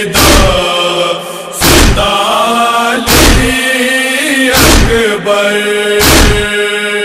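Noha (Shia lament) interlude: a wordless chanted vocal line holding long, slowly gliding notes. Five heavy matam thumps (chest-beating) fall over it, evenly spaced about one and a half seconds apart.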